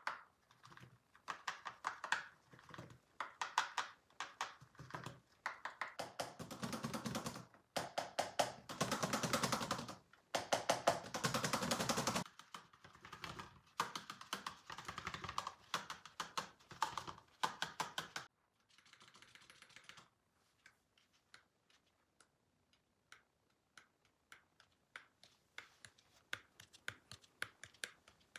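Rapid, dense clicking and crackling from a handled homemade work in progress, loudest in the middle stretch. After about eighteen seconds it thins to scattered single clicks.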